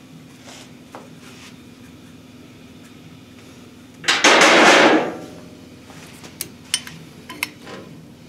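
A loud burst of noise about a second long midway through, then a few sharp metallic clicks as a steel connecting rod is set into the weighing fixture on a digital scale, over a faint steady hum.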